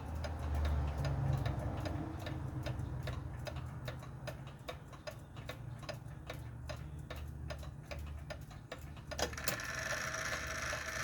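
Ingraham "Gila" clock movement, freshly overhauled, ticking steadily from its escapement at about two to three even ticks a second, with a louder click about nine seconds in.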